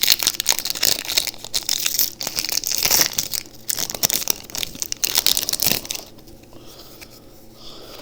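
Foil booster-pack wrapper being torn open and crinkled, a dense crackling that dies down about six seconds in.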